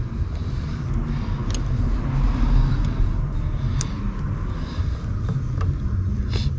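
Steady low rumble with a few short, sharp clicks spread through it, from hands working a seat belt unit's plug and plastic parts into place.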